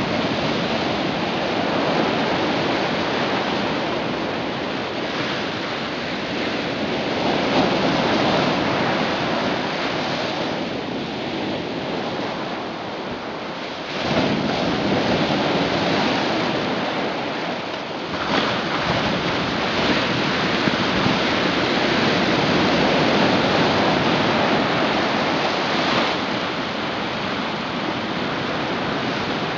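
Ocean surf: a steady rush of waves washing in, swelling and easing over several seconds, louder from about halfway through.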